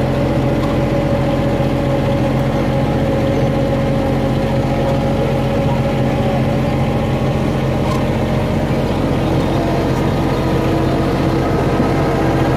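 Engine of the John Deere vehicle pulling a farm ride train, running steadily at an even pace with a constant drone and hum.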